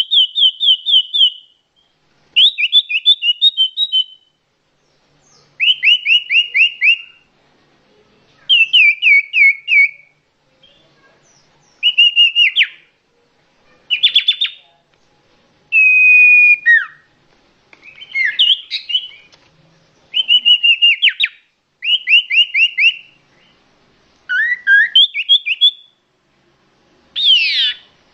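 Common iora (cipoh, sirtu) singing loudly: a dozen or so separate phrases, each a fast run of about ten short falling notes lasting about a second, repeated every couple of seconds, with a few phrases of slurred whistles mixed in.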